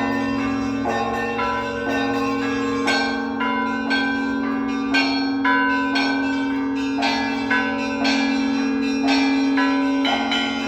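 Russian Orthodox church bells ringing: several bells struck one after another in a steady rhythm, over the long, unbroken hum of a large bell.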